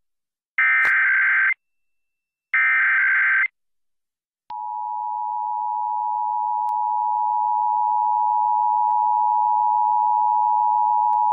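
Emergency Alert System test signal. First come two bursts of EAS header data, about a second each. Then, about four and a half seconds in, the steady two-tone EAS attention signal (853 and 960 Hz together) begins and holds.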